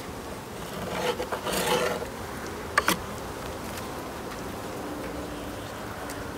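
Wooden hive frame scraping against the hive box and neighbouring frames as it is pried loose with a metal hive tool and lifted out: a rasping scrape about a second in, then two sharp knocks near three seconds. A steady buzz of honeybees runs underneath.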